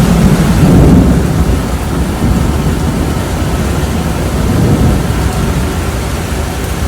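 Loud thunderstorm noise: heavy, steady rain and wind. A deep low rumble swells and fades in the first second or so.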